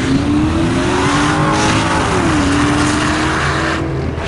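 Drag race cars launching and accelerating hard down the strip, engine pitch climbing, with a gear shift drop about two seconds in. A loud rushing noise runs with the engines and drops off sharply near the end.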